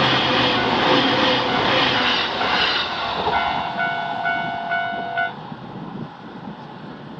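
A train passes through a Japanese level crossing, loud for the first three seconds. As it clears, the crossing's warning bell can be heard ringing its quick repeated 'kan kan' dings, which stop about five seconds in.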